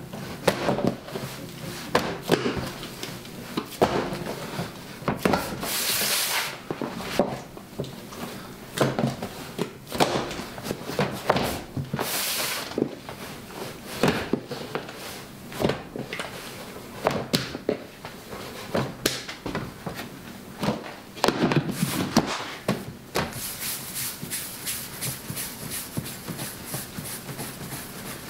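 Hand-working sourdough in clear plastic dough tubs: irregular knocks and clicks of the plastic tubs and lids on the bench, with a few longer swishes as the dough is stretched and folded. Near the end, a quicker, even run of short scuffing strokes as small dough pieces are rounded on a stainless steel bench.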